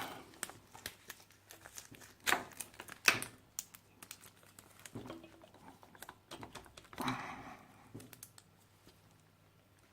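Scattered clicks and clinks of a metal socket wrench and extension being fitted and worked on a tight spark plug, with two sharper clinks a couple of seconds in and a short scrape later on.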